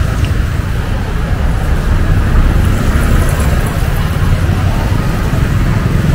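Street traffic noise: steady motor-vehicle sound with a heavy low rumble.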